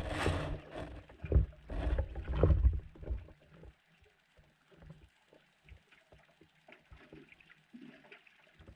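Muffled underwater sound picked up by a GoPro in its waterproof housing: a low rumble of moving water with heavy thumps for the first three seconds, then quieter with scattered light clicks and knocks.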